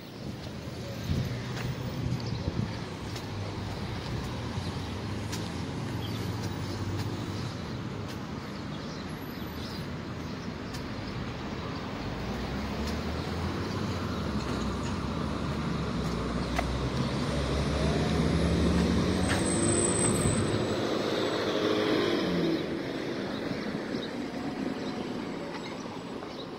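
Road traffic: cars driving past. One vehicle passes louder about two-thirds of the way in, its engine note rising and falling.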